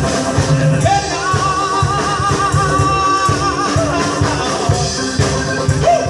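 A live band playing amplified music with a steady drum and bass beat. A long, wavering melody line is held from about a second in until nearly four seconds.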